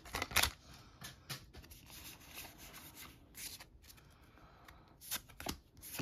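MetaZoo trading cards being flipped through by hand, a soft paper rustle of cards sliding over each other, with a few brief card snaps near the end.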